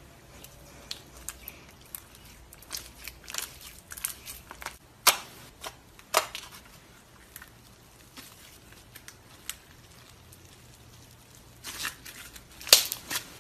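Pink slime squished, poked and stretched by hand, giving irregular wet clicks and pops, with the loudest pops about five seconds, six seconds and nearly thirteen seconds in.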